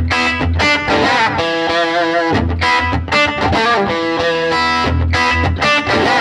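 Electric guitar played through a Fender Pro Junior IV tube combo with its 10-inch Jensen speaker, using a slapback delay. It plays a rhythmic riff of picked chords and single notes with quick, echoing repeats.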